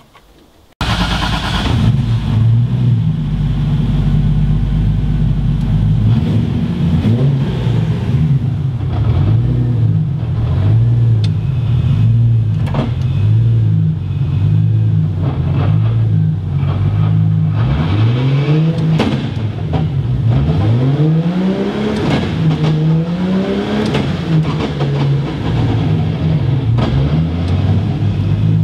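A 2JZ-GTE turbocharged straight-six comes in suddenly about a second in and idles with a wavering pitch. About two-thirds of the way through it is revved in several quick blips, each rising and falling, then settles back to idle.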